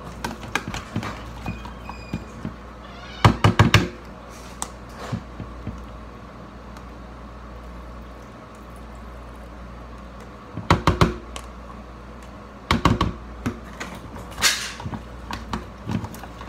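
A metal utensil knocking and scraping against a glass mixing bowl while avocado mash is stirred, in several short bursts of quick clinks.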